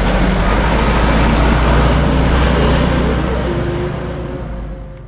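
Loud rumble of passing vehicle traffic at a railway level crossing. It fades over the last couple of seconds and then cuts off abruptly.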